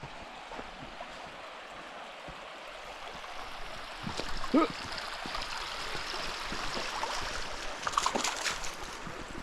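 Creek water running and gurgling over rocks, growing louder partway through. A short squeak sounds near the middle and a few sharp clicks near the end.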